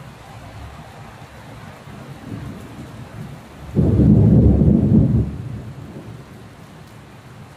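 Steady rain, with a sudden loud clap of thunder nearly four seconds in that rumbles low for about a second and a half before fading.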